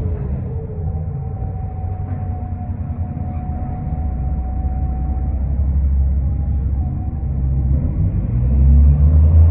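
Onboard sound of a 2005 New Flyer D40LF diesel city bus: a deep, steady engine and road rumble, with a thin steady whine through the first half. The rumble gets louder near the end as the bus starts to pull harder.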